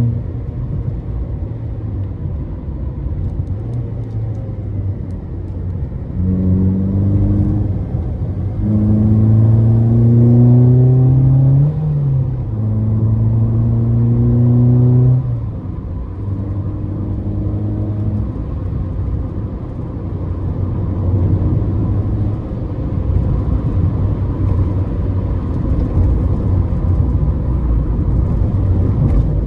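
Ford Fiesta ST150's 2.0-litre four-cylinder engine on the move: it pulls hard with rising revs about six seconds in, breaks off briefly for a gear change, pulls again, then settles into a steadier run with road rumble.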